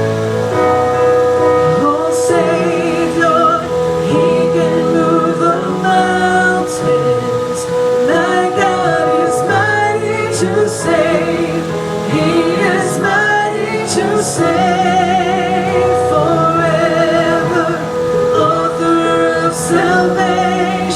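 Music: a woman singing a slow worship song with vibrato, over steady instrumental accompaniment with a long held note.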